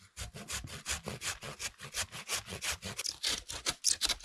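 Hand saw cutting into a dead tree in quick, even back-and-forth strokes.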